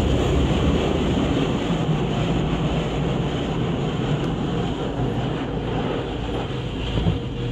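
Rinse water from an automatic car wash pouring and spraying over the car's windshield and body, heard from inside the cabin as a steady rushing noise.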